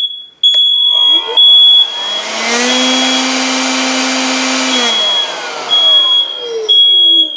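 First Alert 9120B smoke alarm sounding its shrill tone in repeated long beeps, set off by canned test smoke. About a second in, an electric blower spins up, runs steadily, then winds down near the end, partly covering the alarm.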